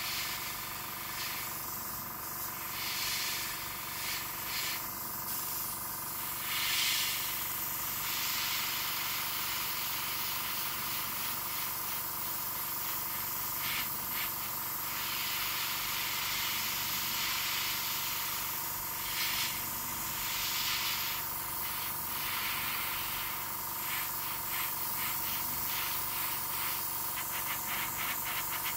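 Airbrush spraying thinned acrylic paint: a steady hiss of air and paint. The spray swells and drops as the trigger is worked, with short rapid bursts near the start and end and longer passes in the middle.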